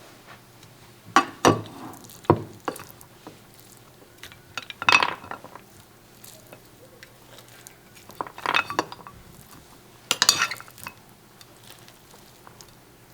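Metal cutlery clinking and scraping against dishes in about five short bursts, with pauses between them.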